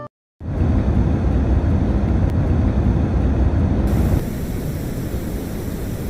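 Steady rushing white noise played as a sound-machine sample, heavy in the low end so that it has a rumble under the hiss. About four seconds in it changes to a brighter, hissier noise with less rumble.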